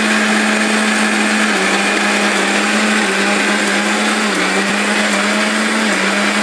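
Electric mixer grinder running at speed, its blades grinding ginger and garlic into a wet paste in a stainless steel jar. A loud, steady whir over a low motor hum whose pitch dips slightly and recovers every second and a half or so.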